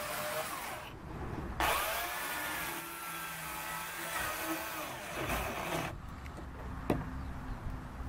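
Makita electric chainsaw cutting through timber, its motor whine rising and falling with the load. It breaks off briefly about a second in, cuts again, and stops about six seconds in, followed by a single sharp knock.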